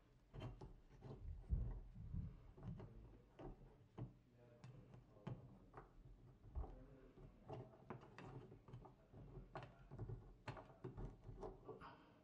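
Faint, irregular clicks, scrapes and light knocks of a metal paint can opener working in the slots of a plastic American Standard pressure balancing unit as it is pried and pulled out of the shower valve body. The loudest knock comes about one and a half seconds in.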